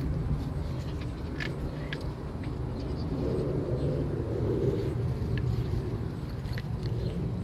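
An engine running steadily with a low rumble that swells a little midway, with a few faint clicks over it.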